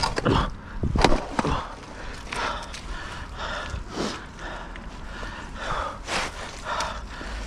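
Close footsteps in wet mud and heavy breathing while handling a magnet fishing rope, with a couple of sharp knocks in the first second or so and another about four seconds in.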